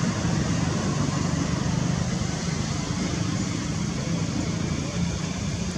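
Steady low hum of a running engine, as of a vehicle idling, over an even background hiss.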